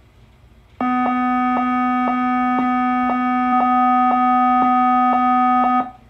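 Sensormatic anti-shoplifting security gate alarm: a steady electronic tone with a faint pulse about twice a second. It starts about a second in and cuts off suddenly some five seconds later. It is the signal of an active security tag being detected at a store exit.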